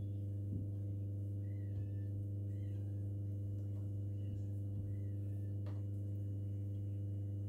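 Steady low electrical hum with several overtones, unchanging throughout. A few faint high chirps are heard in the middle, and a faint tap comes near the end.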